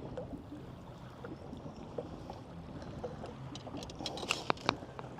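Low, steady background of wind and water around a small fishing boat, with a quick cluster of sharp clicks and taps about four seconds in.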